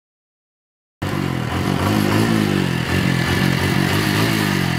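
Silence, then about a second in a motorcycle engine starts up loud, revving up and down again and again.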